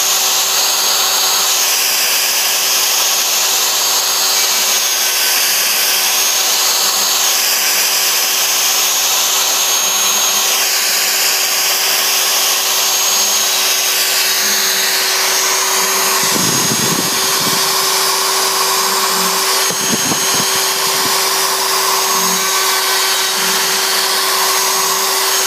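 CNC router spindle running with a steady high whine while a 1/2-inch straight-fluted plunge bit cuts a radial finishing pass in wood. The cutting noise rises and falls as the bit sweeps around the pocket. A couple of brief low rumbles come about two-thirds of the way through.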